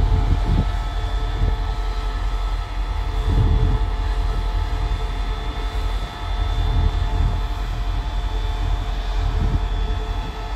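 SRT QSY-class diesel-electric locomotive running close by: a steady engine drone with a whine held on a few steady pitches.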